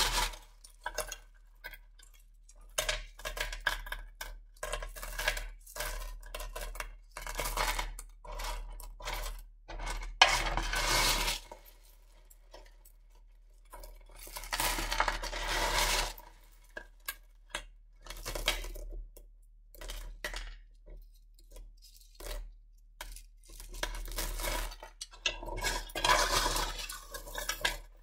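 Wet Lightning Ridge rough opal pieces clinking and rattling against each other as a hand scoops them up and lets them fall back onto the pile. It comes in bursts a few seconds apart, over a steady low hum.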